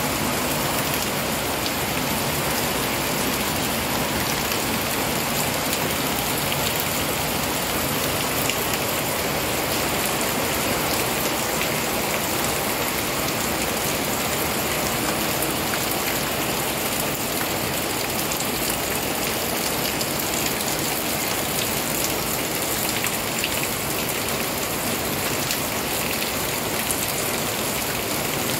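Heavy rain falling steadily on a wet concrete yard and its puddles, a dense, even hiss of drops.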